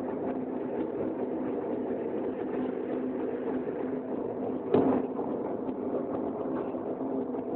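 Crucible furnace plant machinery running with a steady mechanical hum. A single sharp knock comes about five seconds in.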